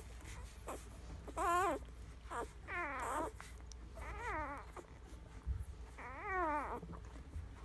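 Newborn English cream golden retriever puppies whimpering and squeaking while they nurse: about four high, wavering whines, each around half a second long.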